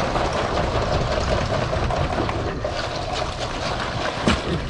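Steady low rumble of a boat out on the water, with one sharp click about four seconds in.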